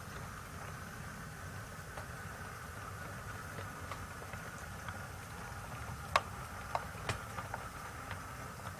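Model railway train running on the layout with a steady low rumble and hum, and a sharp click about six seconds in followed by a few lighter clicks, like wheels or couplings knocking on track.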